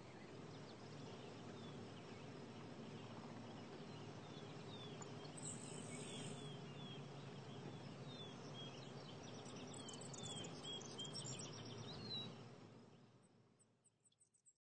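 Faint outdoor ambience: a steady background hiss with small birds chirping in short, falling calls, fading out near the end.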